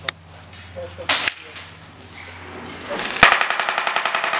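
Airsoft guns firing: a single click at the start, two sharp snapping shots about a second in, then a rapid full-auto burst from about three seconds in.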